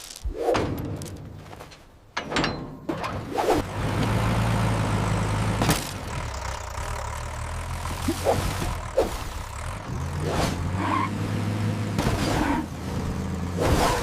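An old tractor engine running with a steady low hum that sets in about two seconds in, with several sharp knocks and clanks over it.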